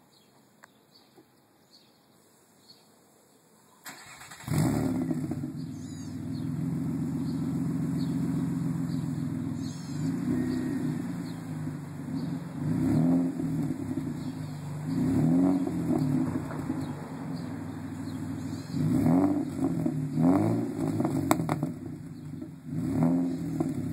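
2005 Nissan Altima SE-R's 3.5-litre V6 through a Magnaflow exhaust, cranked and started about four seconds in, then settling to a steady idle. From about ten seconds on it is revved in several short blips, each rising and falling back to idle.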